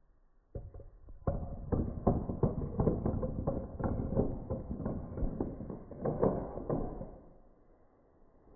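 A line of dominoes toppling one after another, a quick train of clacks at a few per second that runs for about six seconds and dies away near the end.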